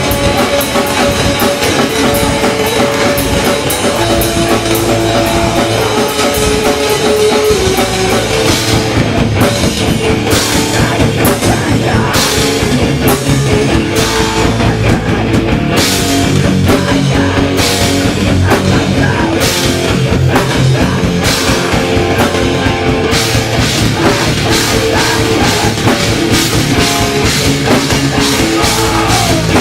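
A hardcore punk band playing live, with distorted guitars, bass and a drum kit all going. Heavier cymbal crashes come in about a third of the way through and keep a driving beat.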